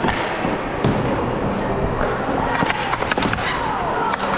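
Deck hockey play: irregular sharp clacks and knocks of sticks and ball over a steady scraping and shuffling on the court.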